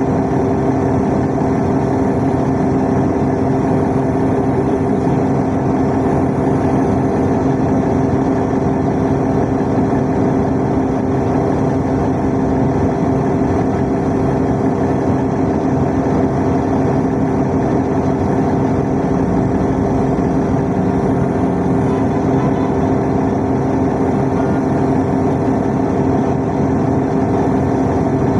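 Steady drone of a city bus heard from inside the passenger cabin, its engine hum holding a constant pitch with no change throughout.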